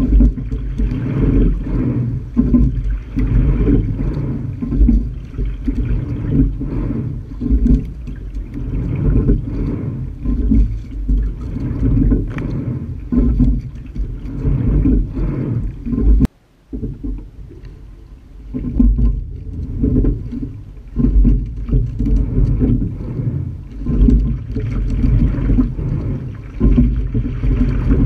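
Rushing water and wind on the microphone of a camera mounted on the deck of a moving rowing shell: a steady low rumble that surges and fades. It drops away suddenly about sixteen seconds in and comes back a couple of seconds later.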